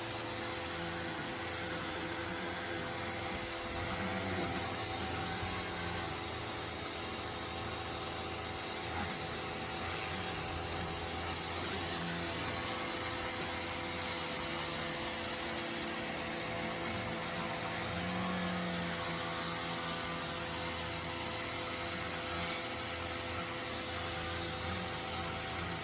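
Pressure washer running steadily, its motor and pump humming under the even hiss of the water jet spraying onto the concrete driveway.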